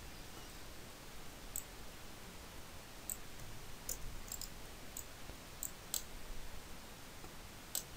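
Faint, scattered clicks of a computer mouse and keyboard being operated, about nine in all, irregularly spaced, over quiet room tone.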